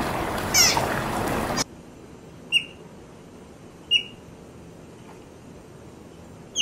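Sea otter pups squealing once over splashing water. After a cut, an otter pup gives short, high squeaks: two about a second and a half apart, and a third at the very end.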